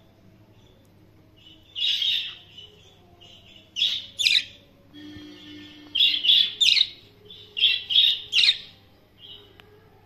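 Pet budgerigars chirping: loud clusters of two or three sharp chirps about every two seconds, from about two seconds in until near the end, with soft chatter in between.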